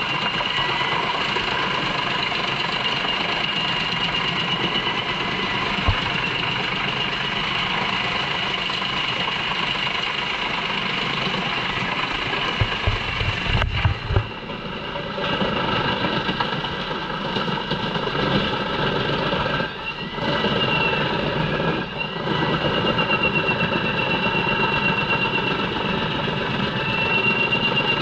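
JENZ HEM 593-R truck-mounted drum chipper running under load, chipping poplar logs fed by its crane, a steady machine drone with a high whine over it. A sharp crack about halfway through, and a couple of brief dips in level later on.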